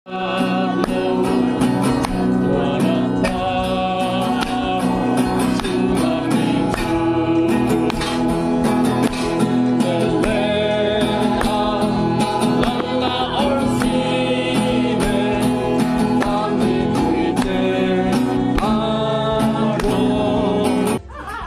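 Intro music: a song with singing over instruments and a steady beat, cutting off suddenly near the end.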